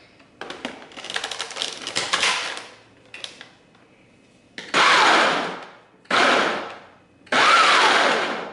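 Countertop blender pulsed three times, each burst about a second long, starting sharply and winding down as the motor coasts, chopping cold butter into flour for pastry dough. Before the pulses, plastic clatter as the lid is fitted onto the jar.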